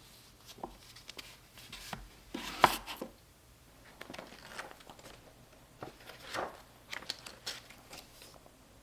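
Kitchen handling sounds: irregular light knocks, clicks and rustles, with the loudest knock about two and a half seconds in.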